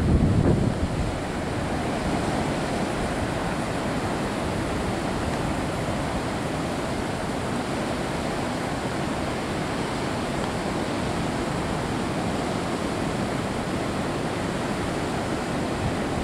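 Steady wash of surf breaking on the beach, with wind buffeting the microphone for about the first second.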